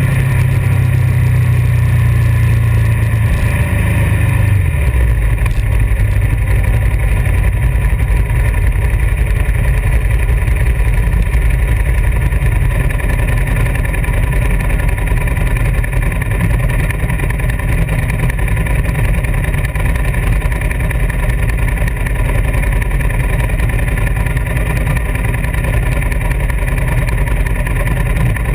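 Ducati 1098S's V-twin motorcycle engine running on the road. Its note drops about four seconds in as the bike slows, then settles into a steady low rumble.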